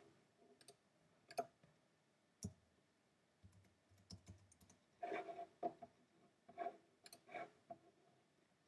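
Faint typing on a computer keyboard: a few separate key clicks, then a quicker run of keystrokes about five to seven and a half seconds in.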